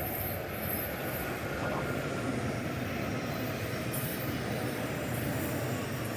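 Odakyu Enoshima Line train running past, a steady rumble of wheels on the rails.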